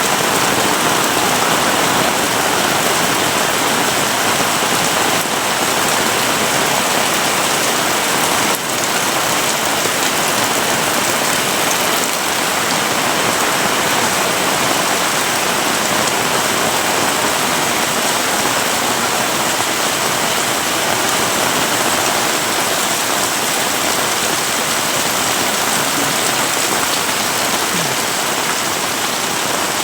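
Heavy rain pouring down in a steady, dense hiss, drumming on the surfaces around.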